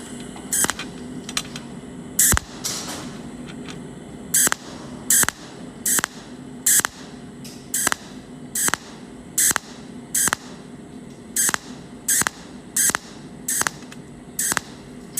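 Cold welding machine firing pulse welds, a short sharp burst each time, roughly one every three-quarters of a second, over a steady low hum from the machine.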